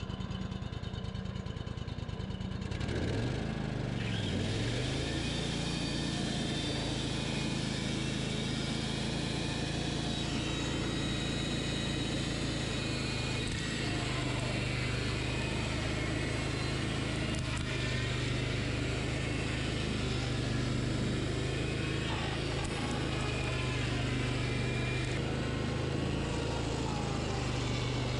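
Wood-Mizer bandsaw sawmill running, its engine under load as the band blade cuts into a large Douglas fir log. The engine pitch dips and recovers about three to four seconds in, then holds steady.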